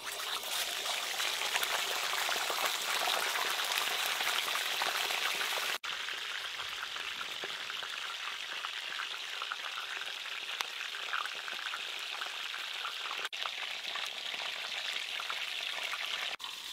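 A whole Chinese pomfret sizzling as it fries in fully heated oil, laid in flat just as the sizzle starts. It is a dense, steady hiss, loudest in the first few seconds, that cuts out briefly three times.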